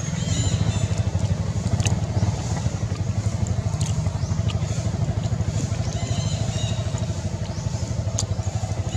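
Steady low rumble of an idling engine, a fast even pulse, with a few short high chirps and clicks above it.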